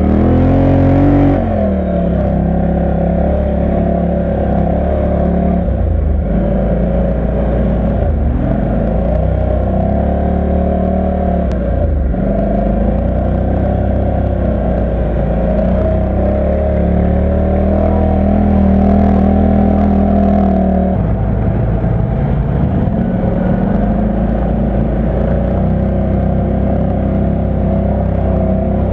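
ATV engine running under load, heard from on board: the revs climb sharply in the first second or so, then the engine note wavers up and down with the throttle, changing pitch again about two-thirds of the way through.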